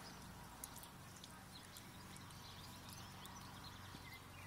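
Cat licking and smacking its mouth after eating: faint, short wet clicks scattered over a steady low hum.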